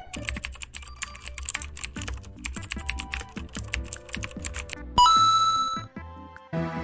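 Computer keyboard typing sound effect: rapid clicking keystrokes for about five seconds, then a bright ding that rings for about a second. A short low hum follows.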